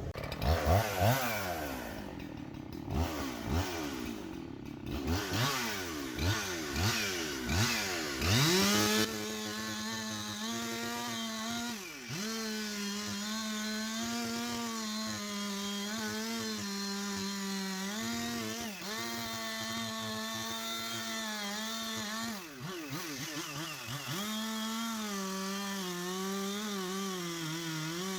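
Husqvarna 371 XP two-stroke chainsaw being revved repeatedly in quick blips, then held at high speed in a steady drone from about a third of the way in, sagging briefly a few times as it cuts into the wood.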